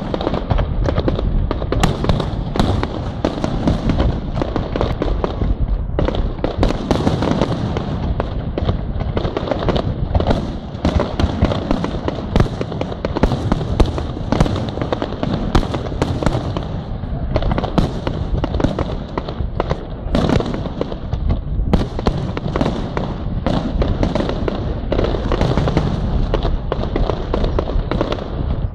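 Aerial fireworks display: many shells bursting in quick succession, nearly without pause, a dense barrage of bangs.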